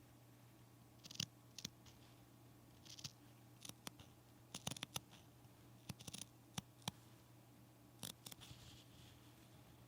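Sewing scissors snipping: short, irregular snips and clicks, quiet, over a faint steady hum.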